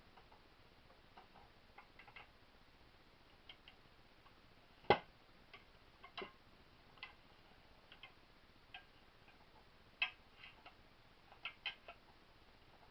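Faint, irregular small clicks and taps of metal and plastic parts being handled and fitted during reassembly of a Winchester 1977XS air pistol, with a sharper knock about five seconds in and another near ten seconds.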